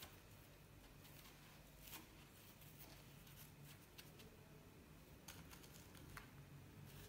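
Near silence, with a few faint, scattered light ticks and rustles as a fried doughnut is rolled in a bowl of caster sugar and set down on a tray.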